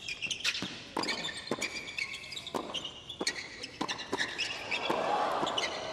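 Tennis rally on a hard court: a quick run of sharp racket-on-ball hits from close volleys at the net, with tennis shoes squeaking on the court surface. Crowd noise swells near the end as the point finishes.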